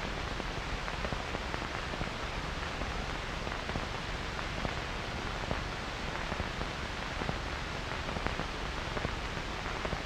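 Steady, even hiss with faint scattered crackles: the noise bed of an old film soundtrack.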